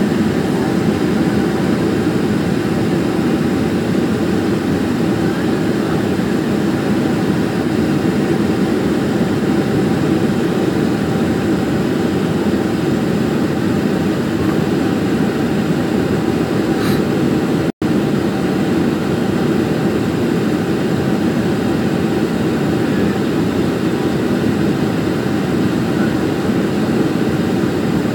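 Steady cabin noise of a jet airliner in flight: the underwing turbofan engine's drone and the rush of air, with a thin steady hum just under 1 kHz running through it. The sound cuts out for an instant about two-thirds of the way through.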